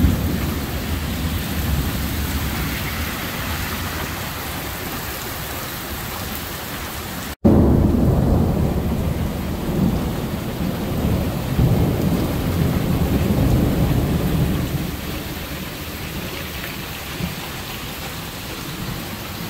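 Heavy rain pouring steadily during a thunderstorm, with thunder rumbling. A long roll of thunder begins about seven seconds in, just after the sound cuts out for an instant, and dies away over the next several seconds, leaving the rain.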